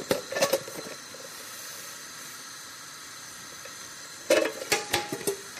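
Granulated sugar poured from a carton into a saucepan of water on a gas hob: a short rattle as it starts, then a steady hiss, with a few knocks about four seconds in.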